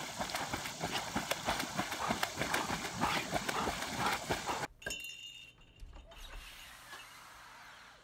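Water splashing as a dog swims and thrashes at the surface, a fast, irregular run of splashes that cuts off sharply about four and a half seconds in, leaving only a faint hiss.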